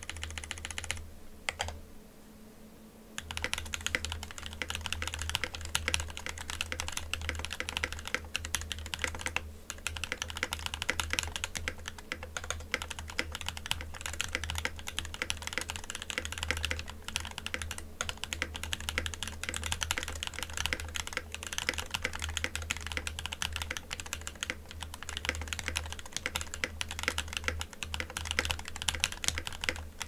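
Fast, continuous typing on a mechanical keyboard: an aluminium-cased Monstargear X0 K80 with lightly lubed Durock POM switches, sandwich mounted with no sound dampening, giving a clacky sound. There is a brief lull in the keystrokes about two seconds in.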